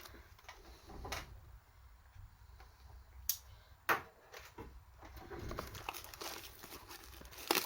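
Cardboard trading-card box and its packaging being handled: a few sharp clicks and taps, then soft rustling near the end.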